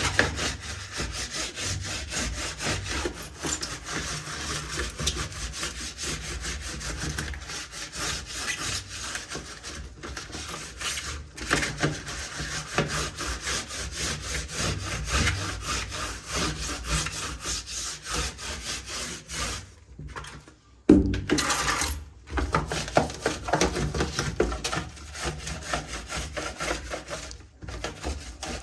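Continuous scrubbing and rubbing during keyboard cleaning, a steady scratchy texture. It pauses briefly about twenty seconds in and comes back louder.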